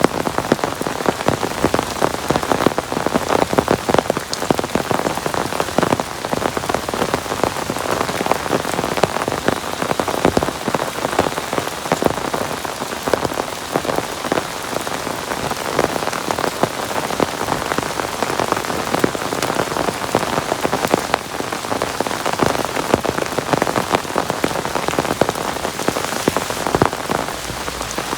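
Heavy rain falling steadily, a dense patter of drops striking a surface.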